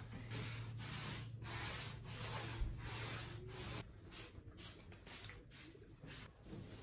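Fabric rubbing as a fitted sheet is smoothed and tucked over a mattress, then a hand trigger spray bottle squirted in quick short bursts, about four a second, starting about four seconds in.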